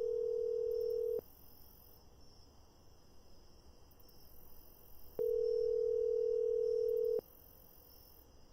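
Telephone ringback tone, the ringing a caller hears while waiting for the other end to pick up: a steady tone sounding for about two seconds, then four seconds of silence, then sounding again for two seconds.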